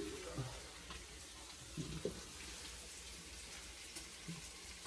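Food frying in a pan, a steady sizzle with a few light clicks of a utensil.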